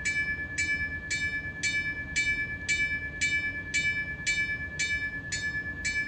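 ESU LokSound 5 sound decoder in an Atlas GP9 model locomotive playing a diesel locomotive bell through its small speaker, ringing steadily at about two strokes a second. This is bell sound option 5, set through CV 164.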